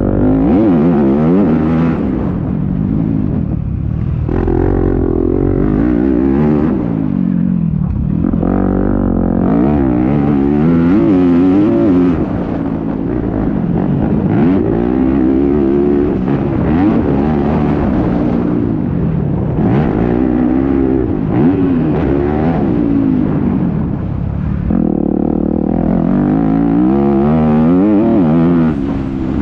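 Yamaha YZ250F four-stroke single-cylinder motocross engine under riding load, its revs climbing and dropping over and over as the rider accelerates, shifts and rolls off for corners, heard close from a helmet camera.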